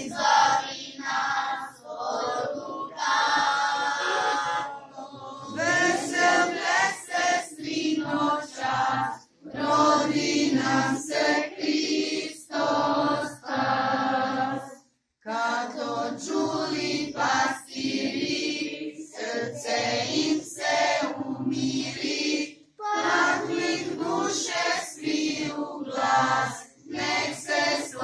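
A small choir of children and women singing a Christmas song in unison, unaccompanied. The song comes in phrases with short breaks for breath, and there is a brief gap about halfway through.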